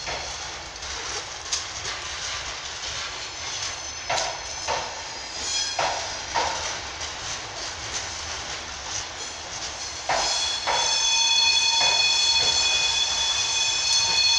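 Unpowered Intercity passenger coaches rolling slowly, their wheels clicking and knocking over rail joints at irregular intervals. About ten seconds in, a louder, steady high-pitched squeal sets in and holds.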